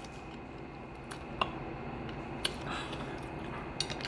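Close-miked chewing with wet mouth smacking: a few sharp, scattered clicks of lips and tongue over soft chewing.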